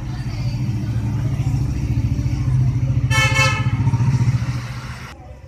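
A motor vehicle's engine running close by, its low rumble growing louder and then fading, with a short horn toot about three seconds in. The sound cuts off suddenly about five seconds in.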